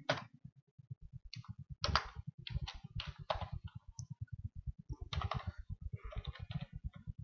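Computer keyboard keys being pressed: a run of irregular, sharp clicks over a fast, even low pulsing.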